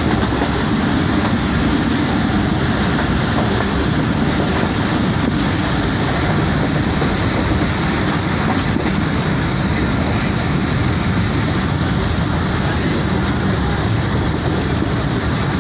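Passenger train running along the line, heard from aboard: a steady, loud noise of wheels on rails and carriage running gear.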